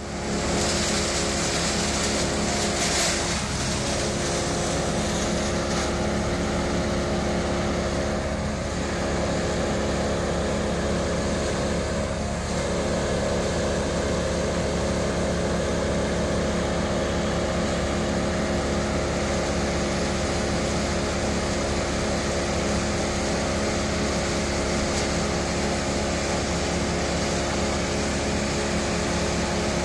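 Heavy machinery engine running steadily at one constant speed, from the tree crew's boom truck or wood chipper.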